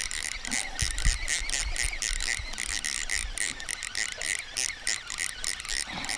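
Fishing reel being cranked, a rapid steady clicking as the line is wound in against a small bass weighed down with moss, with a few low handling thumps about a second in.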